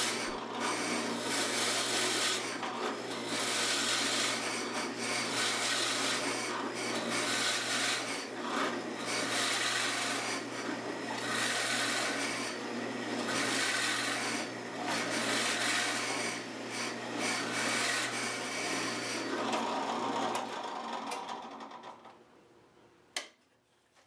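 Drill press running with a 1-inch bit boring into the end grain of a square wooden post blank, the rasping cut swelling and easing in repeated surges over a steady motor hum. The motor stops about twenty seconds in and winds down, and a single sharp click follows near the end.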